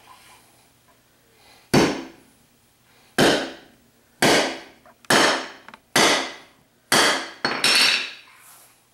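A 24-ounce framing hammer striking a powder-coated cast lead bullet against a concrete floor seven times, about a second apart, flattening it. Each blow is a sharp strike that dies away quickly.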